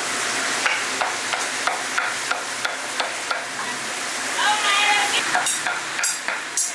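Food deep-frying in hot oil, sizzling steadily, while a metal utensil stirs and taps against the frying pot about three times a second, with a few sharper clanks near the end.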